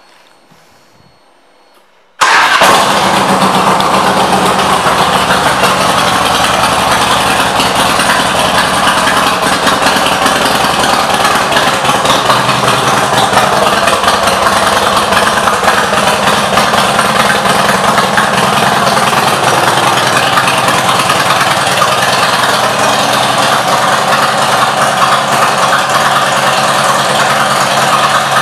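2006 Harley-Davidson Road King Custom's Twin Cam 88 V-twin, fitted with an aftermarket exhaust, fires up about two seconds in and then idles steadily and loudly.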